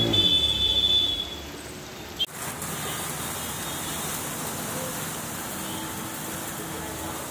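A two-wheeler's engine running through the first second, then fading. After a sudden cut about two seconds in, there is a steady hiss of rain and water on a flooded street.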